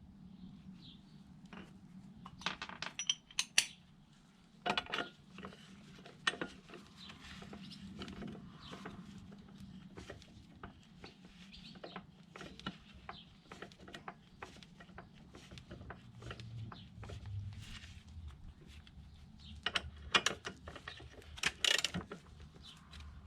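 Metal tools and parts clinking and knocking in irregular bursts, with clusters of sharp clicks a few seconds in and again near the end, over a steady low hum.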